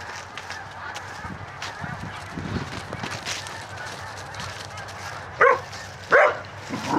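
Geese honking: a steady background of honking runs throughout, with two loud, short honks close by about five and six seconds in.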